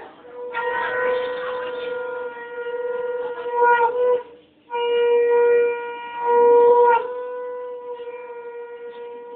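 Conch shell (shankha) blown in long, steady blasts with short breaths between them, each blast ending in a slight drop in pitch.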